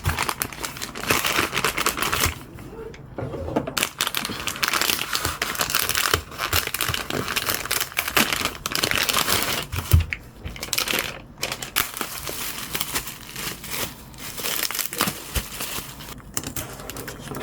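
Plastic packaging crinkling and rustling in dense, irregular crackles as merchandise is handled and unwrapped, with a short knock about ten seconds in.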